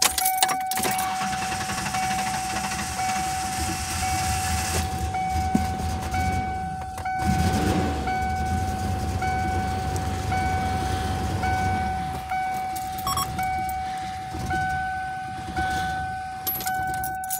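A 1993 Ford Explorer's 4.0 L OHV V6 starting and then idling, still rough: the running-rich, bad idle is only slightly improved after the idle air control valve and MAF sensor were cleaned. A high warning tone keeps sounding over it, pulsing about once a second.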